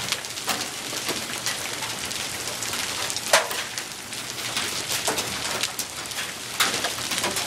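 Golf-ball-size hail pelting down: a steady hiss of many hard, scattered impacts, with a few louder strikes about three and six and a half seconds in.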